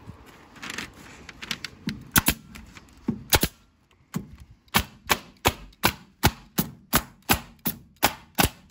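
Arrow pneumatic stapler firing T50 staples into house wrap on a wooden frame. A few scattered sharp clacks come first, then from about four seconds in a fast, even run of shots, about three a second. The stapler is misfiring a lot, so many of these shots drive no staple.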